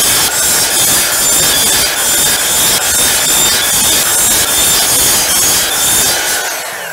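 Electric miter saw running and cutting through 1/2-inch PVC pipe: a steady motor whine over the cutting noise, easing off near the end.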